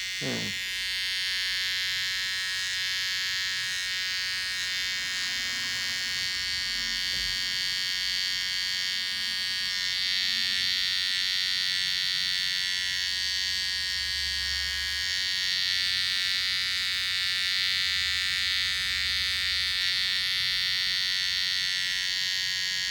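Gamma+ Absolute Hitter hair trimmer running steadily with a high buzz while cutting hair, its blade still set as it came out of the box.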